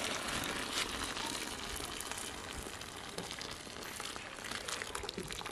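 Plant-dye liquid streaming out of a lifted cloth bag and splashing into a pot of dye bath, a steady patter and splash. The stream thins near the end.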